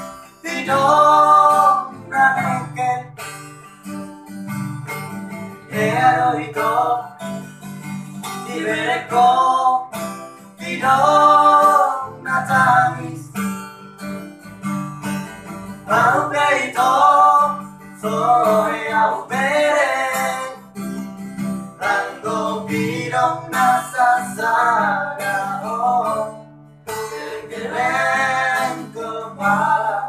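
A man singing into a microphone in phrases with short pauses between them, while an acoustic guitar is strummed throughout.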